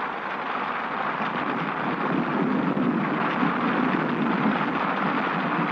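Rainstorm on a 1932 film soundtrack: a steady rushing hiss of heavy rain with wind, without a break.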